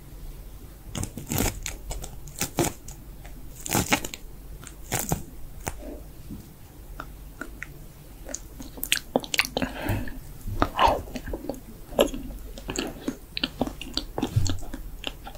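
Close-up ASMR mouth sounds for a mock eating role play: irregular wet clicks, smacks and licks, with a tongue licking a metal knife blade partway through.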